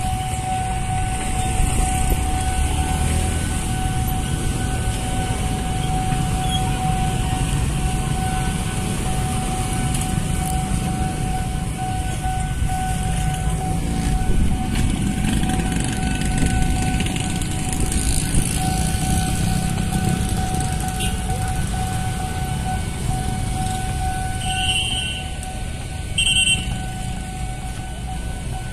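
Street traffic noise, mostly small motorbike engines running and passing, with a steady tone throughout and two short high beeps near the end.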